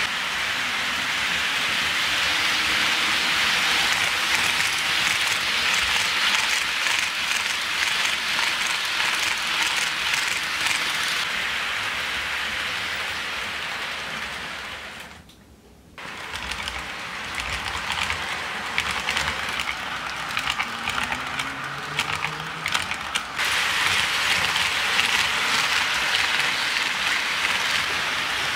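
HO scale model train rolling along Kato Unitrack: a steady hiss of wheels on the rails with fine, rapid clicking over the track joints. The sound drops almost to nothing for about a second midway, then comes back.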